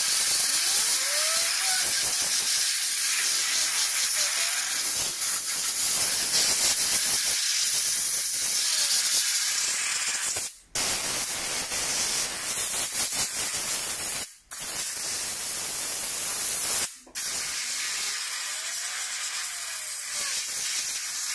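Compressed air blown in long hissing jets into a PlayStation 4 Pro's vent grilles, clearing out dust. The air stops briefly three times, about halfway through, then twice more a few seconds apart.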